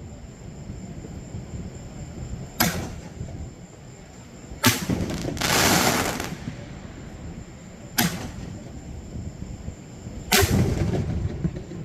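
Fireworks bursting: four sharp bangs about two seconds apart, each trailing off in a rumble. Right after the second bang comes about a second of loud hiss.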